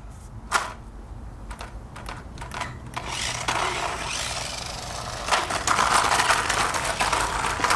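Small electric toy RC monster truck driving over rocks, its plastic wheels and chassis making a rapid clattering rattle. It starts about three seconds in and gets louder a couple of seconds later.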